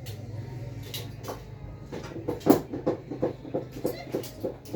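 A run of about a dozen short, evenly spaced clicks, roughly five a second, starting about two seconds in, the first one the loudest, over a low steady hum.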